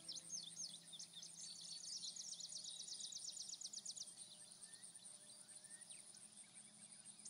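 Faint birdsong: scattered high chirps and a fast trill of rapidly repeated notes in the first half, growing sparser later, over a steady high hiss.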